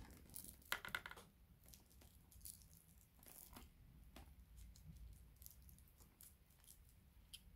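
Faint, scattered clicks and rustles of hands working a microphone wire into the padded lining of a Scorpion 510 motorcycle helmet, with a louder cluster of clicks about a second in.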